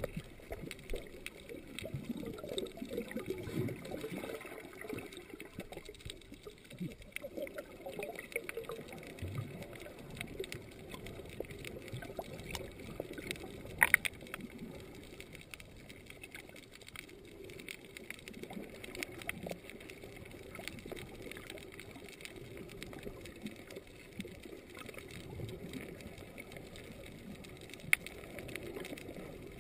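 Underwater water noise heard through a submerged camera: an uneven, muffled gurgling and sloshing with scattered faint clicks. Two sharper clicks come about halfway and near the end.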